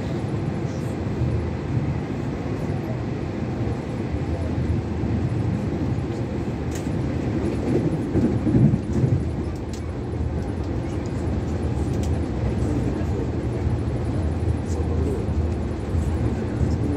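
Steady low rumble of a moving passenger train heard from inside the carriage, swelling louder briefly about eight seconds in, with faint scattered clicks.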